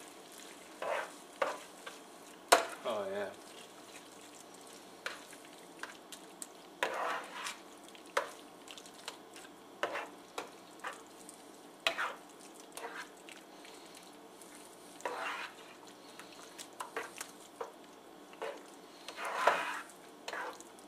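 A spoon stirring chunks of squirrel meat through thick gravy in a skillet, with wet scraping swishes and scattered knocks of the spoon on the pan, the sharpest a couple of seconds in, over a faint sizzle.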